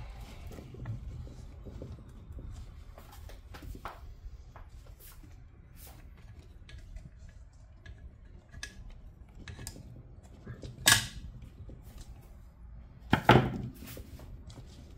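Hand tools and metal parts clinking and knocking during work on a car's rear suspension. Two louder metal clanks come late on, about two seconds apart.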